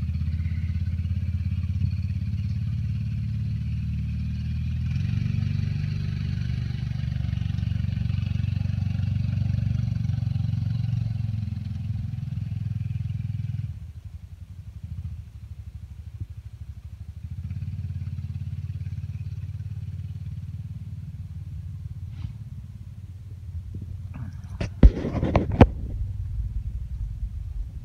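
Engine of a side-by-side utility vehicle running as it drives across the yard, a steady low hum that drops off abruptly about halfway and comes back fainter. A few sharp knocks or clicks sound near the end.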